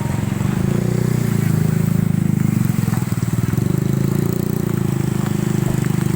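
An engine running steadily with a fast, even pulse, most likely a motorcycle-sized engine.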